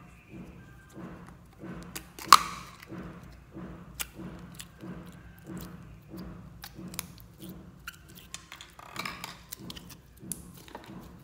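A small plastic slime tub is handled and snapped open with one sharp click about two seconds in. Then come soft squishing and crackling sounds as yellow jelly slime is squeezed and pressed into a bowl of clear bead-filled slime.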